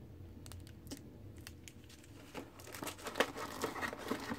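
Plastic packaging crinkling as hands handle a small plastic bag and the cardboard inserts of a gun box: sporadic small crackles that grow busier and louder in the second half.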